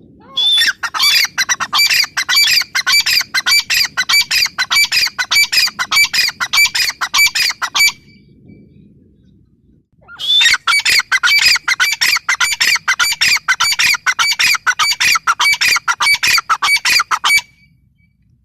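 Grey francolin calling in two long, loud runs of rapid, shrill, evenly repeated notes, several a second. Each run lasts about seven seconds, with a pause of about two seconds between them.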